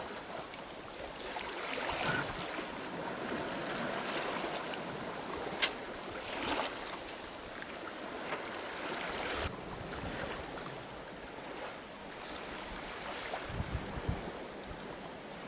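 Water rushing and splashing along a sailboat's hull as it sails, with wind, and a single sharp click about five and a half seconds in.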